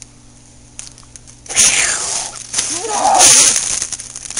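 A person gives a loud, wavering, wordless cry, starting about one and a half seconds in and lasting about two seconds, as they crouch at the pool's edge before jumping in. A faint steady hum sits under the quiet opening.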